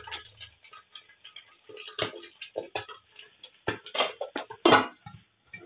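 Mackerel tuna frying in hot oil in a lidded wok: irregular sharp pops and crackles of the oil spitting, the loudest two about four and four and a half seconds in.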